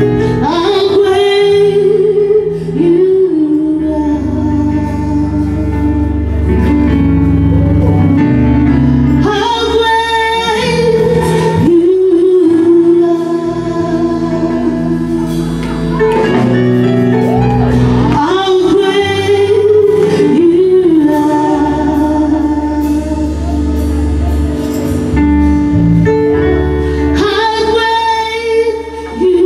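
Worship song: a singer holding long, bending notes over a band with a steady bass line.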